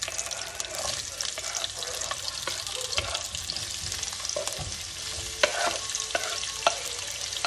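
Rainbow carrots sizzling in a hot frying pan as they are stirred, a steady crackling hiss with a utensil clicking and scraping against the pan, sharpest twice near the end.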